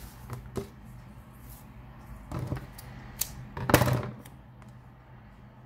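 Double-sided adhesive tape and card being handled: a few short clicks and rustles, the loudest a brief noisy rasp a little under four seconds in, as tape is pulled and pressed onto the paper.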